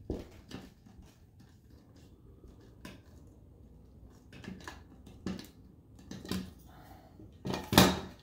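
Small screwdriver driving self-tapping screws into XLR connectors on an aluminum case panel: scattered light metal clicks and ticks, with a louder clatter near the end.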